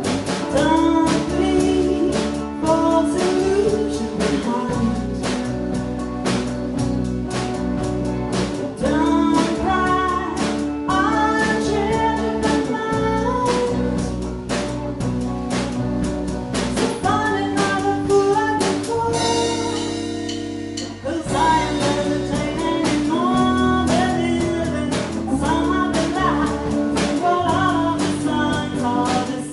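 A song with singing over a band of guitar, bass and drums. The beat drops back briefly about twenty seconds in, then the full band comes back.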